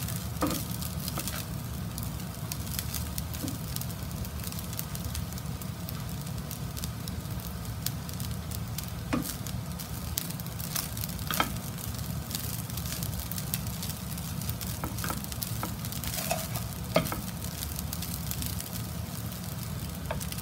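Fried rice sizzling in a non-stick frying pan as it is stirred and turned with a spatula, with a few sharp clicks of the spatula against the pan.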